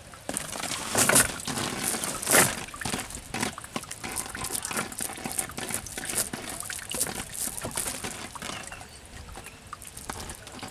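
Water splashing and dripping in shallow water, with two louder splashes about one and two and a half seconds in, then many small splashes and trickles.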